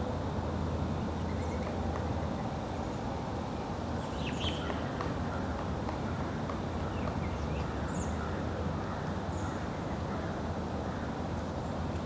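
Woodland ambience: a steady low rumble with a few faint, short, high-pitched chirps from small birds, a cluster about a third of the way in and two more later on.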